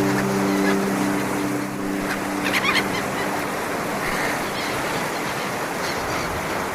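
Sea waves washing steadily on the shore, with a few short gull cries. The last held notes of background music fade out in the first two seconds or so.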